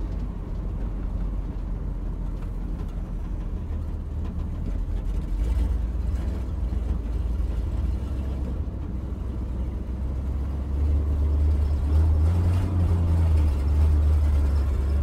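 1979 Chevy C20's 454 big-block V8 running at low revs as the truck is driven gently, a steady low drone that gets louder about two-thirds of the way through. The owner suspects the engine is being starved of fuel by a weak fuel pump.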